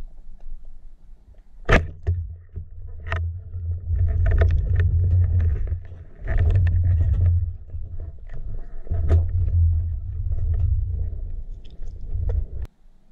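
Underwater, a speargun fires with one sharp snap about two seconds in. Uneven low rumbling follows, stopping and starting, and cuts off suddenly near the end.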